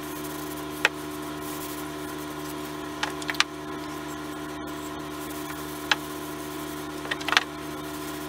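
A few short, sharp clicks and knocks as a wooden rifle stock is handled and rubbed down with an oiled rag, over a steady hum.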